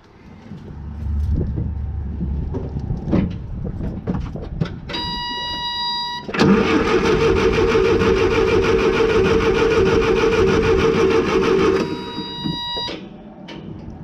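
A steady warning-buzzer tone sounds for about a second. Then the Case 1835B skid steer's starter cranks the engine for about five and a half seconds, a loud even churning, without the engine firing: there is no spark, because the ignition points are stuck open. The buzzer sounds again for about a second after the cranking stops.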